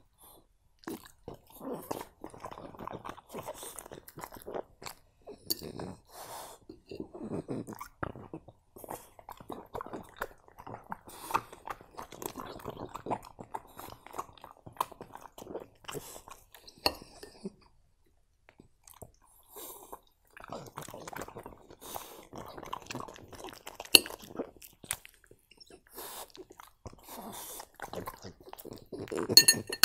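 French bulldog chewing and crunching pieces of fruit and broccoli in uneven bouts, with a pause of a couple of seconds midway and a few sharp clicks.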